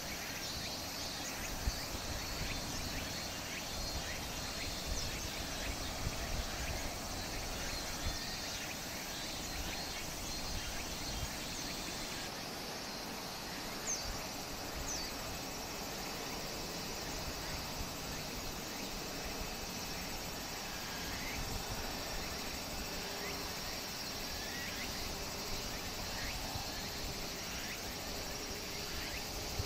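Outdoor ambience: wind rumbling on the microphone, a steady high insect buzz, and a couple of short chirps around the middle.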